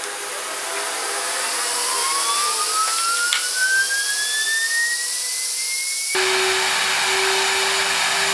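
CNC router spindle spinning up, its whine rising steadily in pitch over about five seconds under a steady rushing noise. About six seconds in, a louder steady rush with a low hum cuts in as the dust extraction is switched on.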